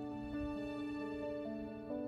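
Background music: a slow instrumental with held notes that change pitch every half second or so.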